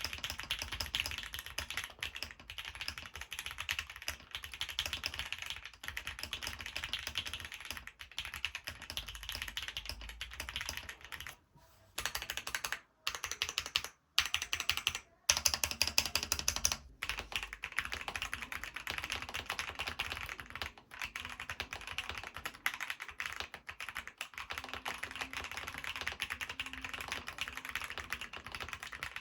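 Fast, continuous typing on a mechanical keyboard fitted with Keytok keycaps: a dense run of keystroke clacks, with a few short pauses about halfway through.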